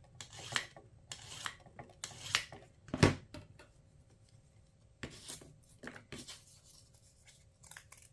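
A scissor blade's beveled edge drawn in repeated short rasping passes across a Sharpal multi-tool sharpener, metal scraping on the abrasive. One sharper knock comes about three seconds in, and the strokes turn softer and sparser after that.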